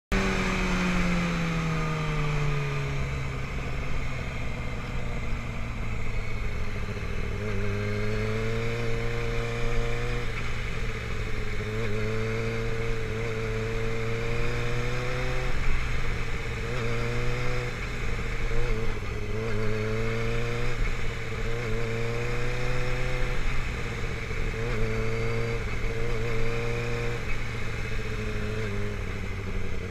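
Sport motorcycle engine heard from the rider's seat, dropping in pitch over the first few seconds as it slows, then running at low, fairly steady revs with small rises and falls as the throttle is eased on and off. A steady rush of wind and road noise runs under it.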